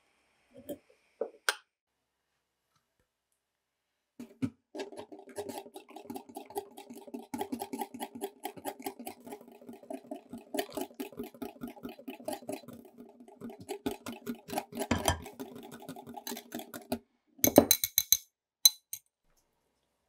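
Wire whisk beating rapidly in a glass bowl, a dense clicking rattle against the ringing glass that starts about four seconds in and stops near the end. A few sharp clinks follow, the loudest sounds.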